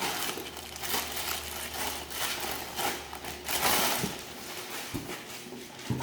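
Rustling and crinkling of a cardboard box and its packing being handled and opened, with a few light knocks.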